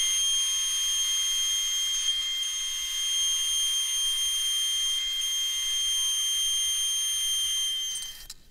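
DeWalt benchtop thickness planer running with a steady high-pitched whine and hiss as a glued-up board panel passes through it. The sound cuts off near the end.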